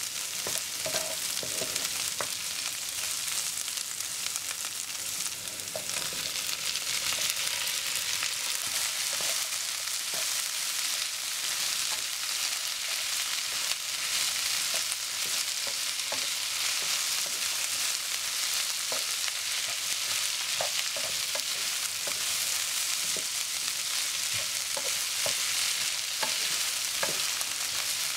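Food sizzling in a frying pan while it is stir-fried, first diced onion, chilli and garlic and then long beans, with a wooden spatula scraping and clicking against the pan. The sizzle grows louder about six seconds in.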